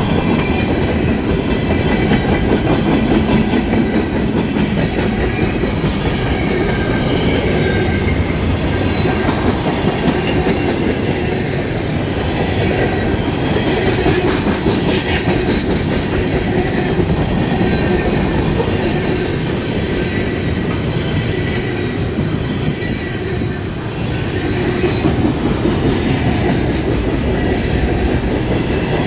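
Freight cars of a slow-moving manifest train rolling past: a steady rumble of steel wheels on rail with clickety-clack over the joints and faint high wheel squeal at times.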